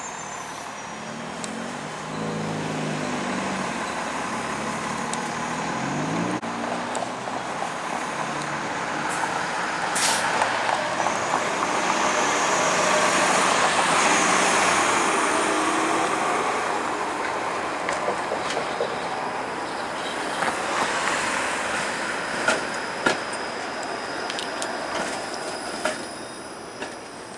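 Bombardier Flexity Outlook streetcars running on street track with road traffic passing, loudest about halfway through as a high whine rises. A few sharp clicks come in the later part.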